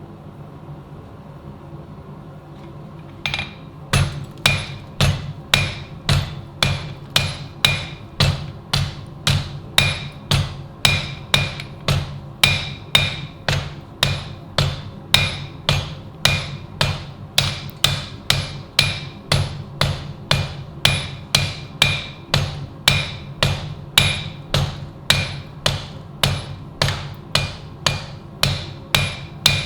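Blacksmith's hammer striking steel in a steady rhythm, about one and a half blows a second, each with a bright metallic ring, starting about three seconds in. A steady low hum runs underneath.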